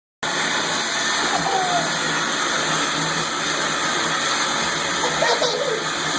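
Running water hissing in a steady stream. A few faint, short gliding vocal sounds come over it, about a second in and again near the end.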